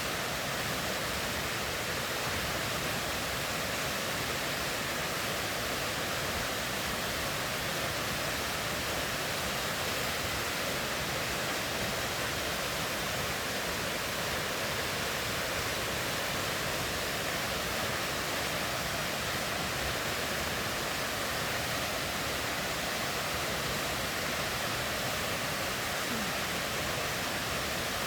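River water rushing, a steady unbroken sound of flowing water.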